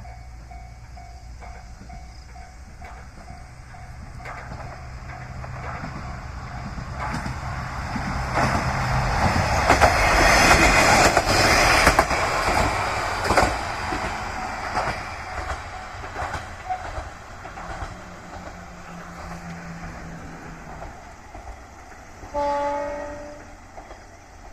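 Level crossing warning bell pulsing about twice a second as a diesel railcar on the Yodo Line approaches and passes, its engine humming and its wheels clacking over the rail joints, loudest about ten seconds in before fading away. Near the end comes one short horn blast, falling slightly in pitch.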